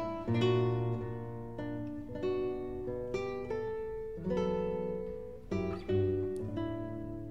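Background music: an acoustic guitar piece of plucked notes and strummed chords, each note starting sharply and fading.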